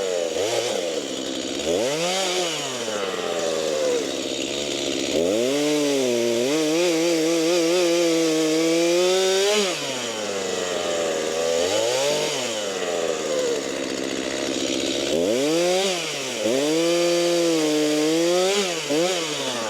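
Stihl chainsaw cutting up cherry logs. The engine revs up and holds a high, steady pitch for several seconds, drops back to idle about ten seconds in, then revs up again in a few shorter bursts.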